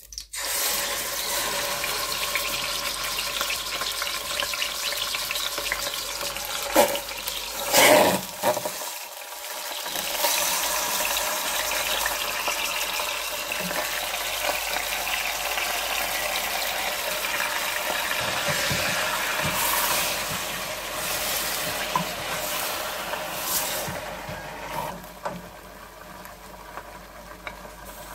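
Marinated chicken pieces sizzling in hot oil in a stainless steel pot, a steady frying hiss, with two louder flare-ups about seven and eight seconds in. The sizzling eases off a few seconds before the end.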